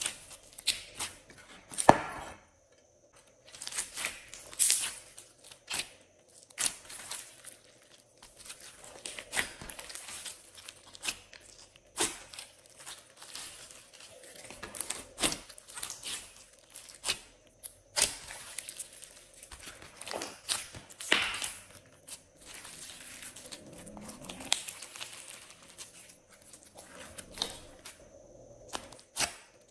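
Glossy slime being squeezed, stretched and folded by hand, giving irregular sticky crackles and clicks.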